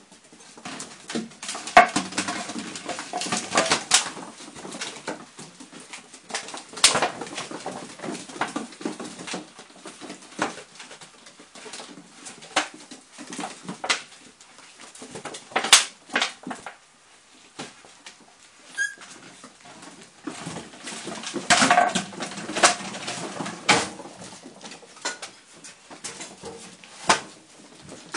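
A litter of month-old Rhodesian Ridgeback puppies playing and scuffling, with small whimpers amid sharp clicks and knocks from claws on wooden floorboards and a plastic bottle being pushed and chewed. The scuffling is busiest about two seconds in and again around twenty-two seconds in.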